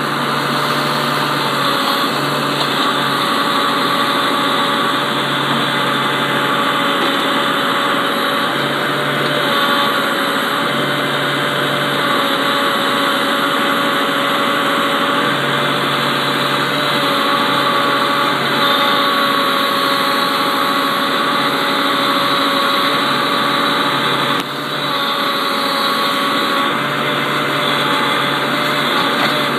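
New Holland TV-140 tractor's diesel engine running steadily under the backhoe, with a lower hum that comes and goes every second or two.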